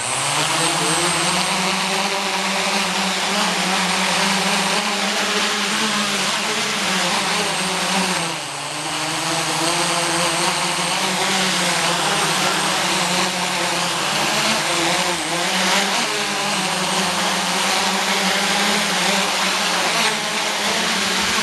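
Homebuilt quadcopter's four electric motors and propellers running at speed: a loud, steady buzzing whir whose pitch wavers up and down as the throttle shifts, dipping briefly about eight seconds in.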